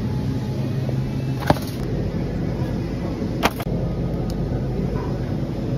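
Supermarket ambience: a steady low rumble and hubbub, with two sharp clicks about two seconds apart.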